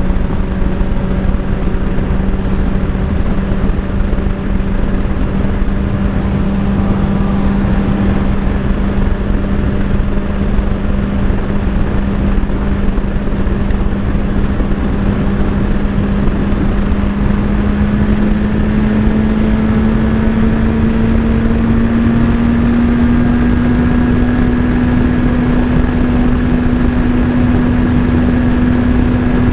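Motorcycle engine running steadily, its pitch holding level and then climbing slowly and smoothly through the second half, over a constant low rumble.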